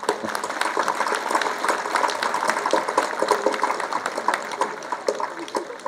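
Audience applauding: a dense patter of many hands clapping, easing off a little toward the end.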